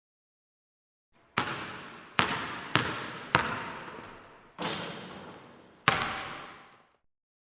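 A ball bounced six times on a hard court floor, starting about a second in, at uneven intervals; each bounce is sharp and rings out in a long echo from the large hall.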